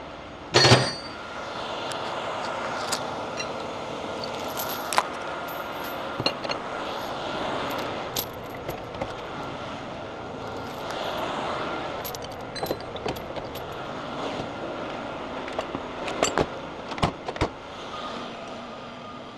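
Heavy tow truck engine running steadily, with scattered metallic clinks and jingles of rigging gear being handled and stowed.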